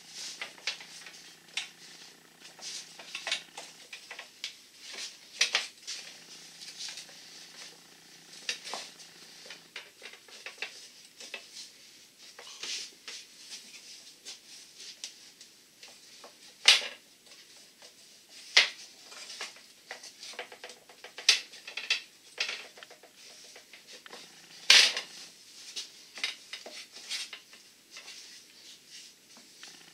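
Copper tubing being bent by hand around a round form, clinking and scraping against the form, the other coils and the steel table in irregular clicks. Two louder clanks stand out, one about halfway through and one later on.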